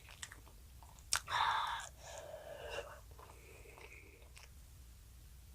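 A child chewing food with wet mouth sounds: a sharp click about a second in, then a louder noisy stretch of under a second, then softer chewing that dies away by about the middle.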